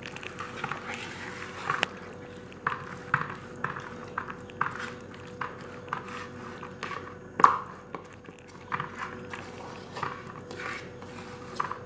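A hand rubbing wet spice marinade into raw chicken pieces in a steel bowl: irregular small squelches and slaps, with a sharper knock about seven and a half seconds in.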